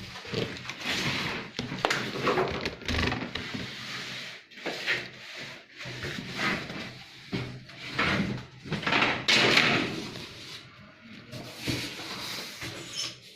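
Cardboard carton being pulled open and worked off a new washing machine: irregular scraping and rustling of cardboard with scattered knocks and thuds.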